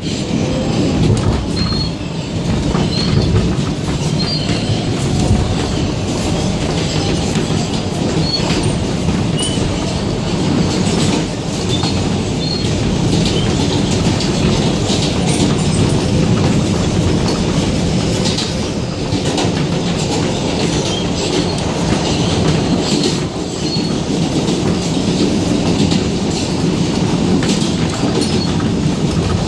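An R160B Siemens subway car running at speed through a tunnel, heard from inside: a steady rumble of wheels on rail, clicks over rail joints and brief high wheel squeals.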